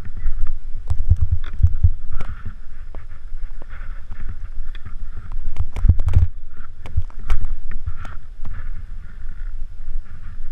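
Wind buffeting the action camera's microphone and skis hissing through fresh powder during a downhill run, with scattered sharp knocks throughout and a loud cluster of them about six seconds in.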